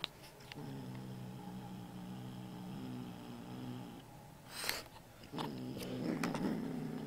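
Kitten growling low and steady with a banknote clamped in its mouth: a possessive growl guarding its prize. It comes in two long growls, the second louder, with a brief sharp noise between them.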